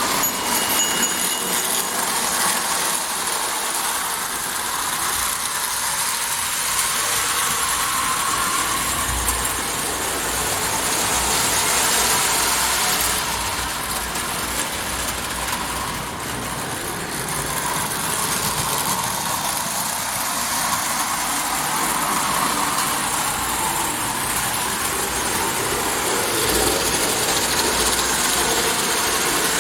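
Marx toy train running on its track: a steady motor whir and the clatter of wheels on the rails, getting a little louder and softer as it goes round.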